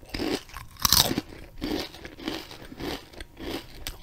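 Watermelon churro snack being bitten and chewed right at the microphone. A loud crunchy bite comes about a second in, followed by steady chewing, a few chews a second.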